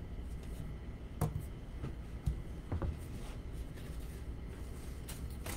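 Paper sheets and painted card swatches being handled and shifted on a tabletop: a few short taps and paper sounds over a low steady room hum.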